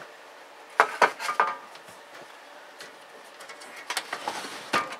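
Small metallic clicks and clinks of screws and a hand tool against the amplifier's sheet-metal chassis: a quick run of four or five about a second in, then scattered ones near the end.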